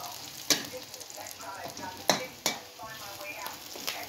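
Garlic and onion sizzling in oil in a wok while a spatula stirs them, with the spatula knocking and scraping against the pan three times.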